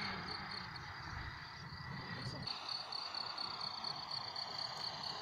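Crickets chirping in a rapid, even pulsing rhythm, about five pulses a second. Under it, the faint whine of a distant model jet's turbine slowly falls in pitch.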